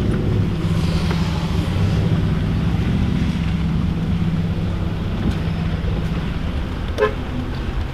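Car engine running steadily with a low, even drone, and a short click near the end.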